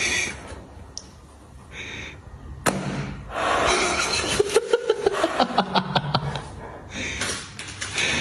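A spring mousetrap snaps shut once, a sharp crack about a third of the way in. It is followed by a few seconds of raspy squawking from a squeezed rubber chicken toy, with rapid clicks.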